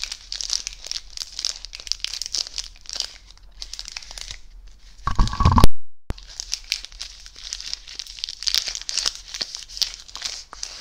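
Close-up crinkling of a plastic chocolate-bar wrapper being squeezed and handled right at a condenser microphone, a dense run of sharp crackles. About five seconds in, a loud low bump is followed by a moment of silence, then the crinkling starts again.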